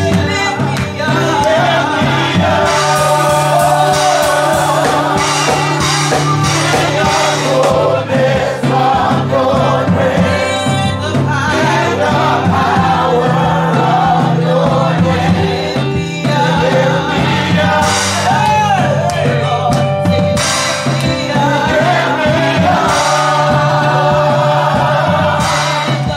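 Gospel praise song sung by a mixed worship team of men and a woman through microphones, over instrumental backing with a steady bass line and occasional cymbal crashes.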